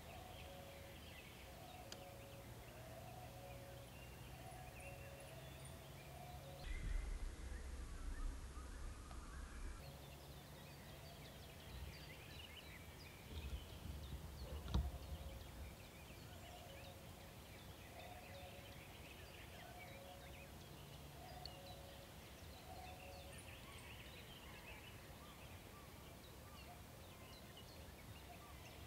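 Quiet open-field ambience with faint scattered bird calls, and brief low rumbles about seven and fourteen seconds in.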